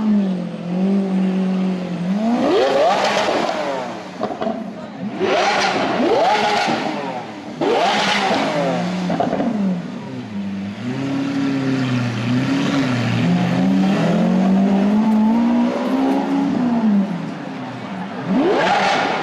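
Lamborghini Aventador's V12 engine revved repeatedly in sharp blips, the pitch rising quickly and dropping back each time, settling to a steady idle between revs.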